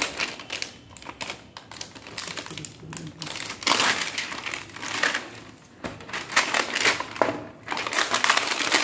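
Clear plastic shrink-wrap crinkling and crackling as it is torn and peeled off a plastic sipper bottle and a cardboard box. It comes in bunches, loudest a little over a third of the way in and again through the last third.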